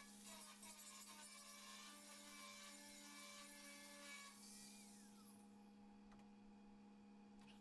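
Faint angle grinder running, then switched off about four seconds in and winding down in pitch, under a steady electrical hum.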